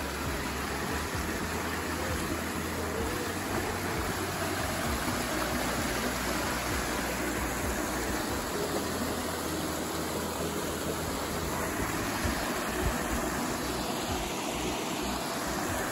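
Shallow river water rushing and splashing over rocks and small ledges, a steady, even rush of running water.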